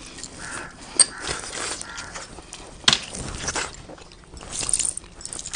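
A man biting into and chewing a fried chicken leg piece: soft mouth and chewing noises with two sharp clicks, about one and three seconds in.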